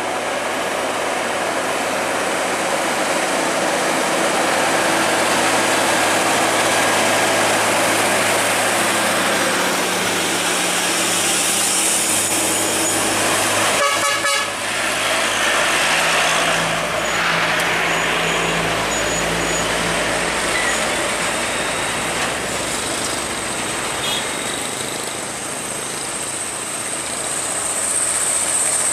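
Heavy trucks' diesel engines labouring as they pull up a slope, with tyre and road noise from the passing traffic.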